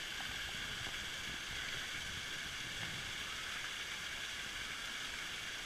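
Small waterfall splashing down over boulders into a pool: a steady rush of falling water.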